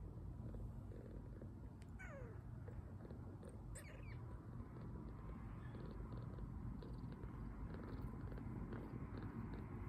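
Two-week-old kitten purring steadily, a soft continuous rumble, as it lies milk-drunk and relaxed. Two tiny high squeaks break in, one falling in pitch about two seconds in and another near four seconds.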